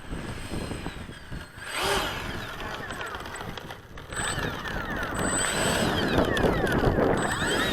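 80 mm electric ducted fan of a Freewing F-86 Sabre RC jet running as it taxis, its whine gliding up and down in pitch with the throttle. It gets louder from about four seconds in.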